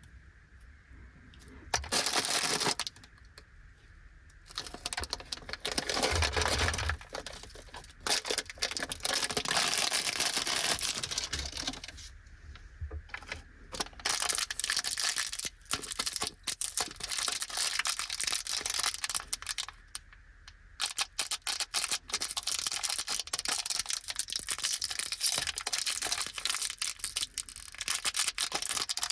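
Plastic snack wrappers crinkling and tearing as they are opened by hand, in irregular bursts with short pauses.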